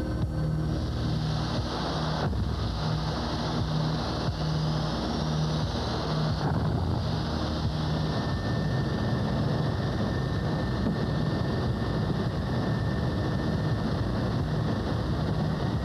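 SR-71 Blackbird's Pratt & Whitney J58 jet engine spooling up: a rushing roar with a whine climbing in pitch over several seconds, then a steady high tone from about eight seconds in. Under it a low throb pulses about once every three-quarters of a second.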